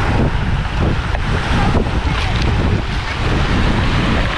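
Small waves washing onto a pebble beach, with steady wind noise rumbling on the microphone.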